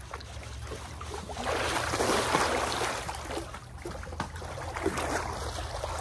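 Pool water sloshing and splashing as people move through an above-ground swimming pool, swelling about a second and a half in and easing off after three seconds.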